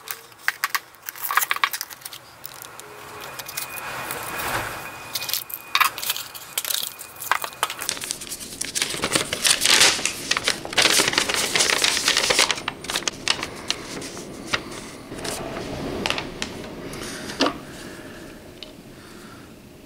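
Unboxing sounds: a small cardboard box being opened and handled, with scattered clicks and taps, then a folded paper instruction sheet rustling loudly as it is unfolded and handled in the middle.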